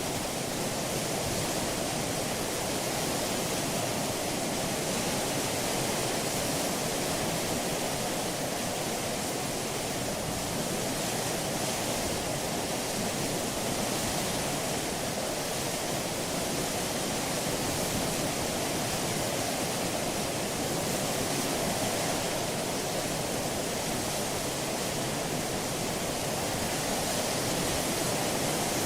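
Steady rushing water noise of a ship under way, sea washing along the hull, with no engine tone, horn or bell.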